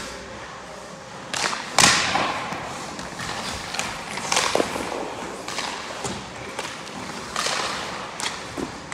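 Hockey skate blades scraping and carving on rink ice in a series of short hisses as a goalie pushes across the crease and drops down, with a sharp hit about two seconds in that is the loudest sound.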